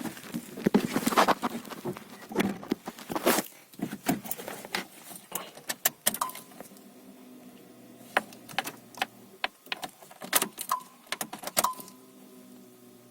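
Keys jangling and clattering, then about halfway through the Fiat 1.2 petrol engine settles into a steady idle, running with its newly replaced fuel injector.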